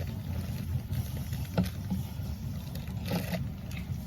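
Steady low background rumble, with a couple of faint clicks and rustles from a Funko Soda can and its packaging being handled as it is opened.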